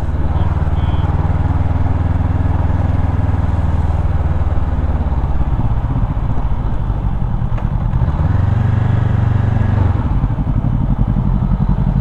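Parallel-twin motorcycle engine running on the move, a steady low hum under riding noise, its note shifting a few times; near the end it settles into an even, low pulsing beat.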